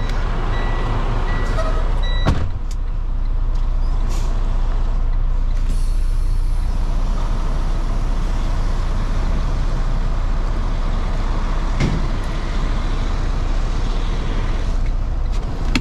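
Semi-truck tractor's diesel engine running steadily, heard from inside the cab as it rolls slowly. A high steady tone sounds for the first two seconds and ends with a sharp clunk, and there is a fainter click later on.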